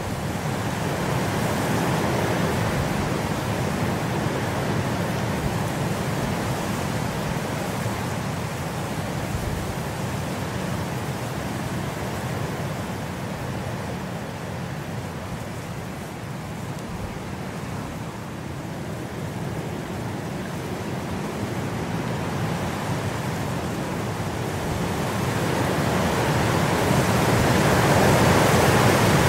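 Steady rushing rain noise, slowly swelling and easing, at its loudest near the end.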